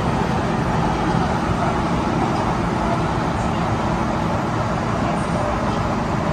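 Inside an MTR M-Train electric multiple unit under way: a steady rumble of wheels and running gear, with a faint constant low hum underneath.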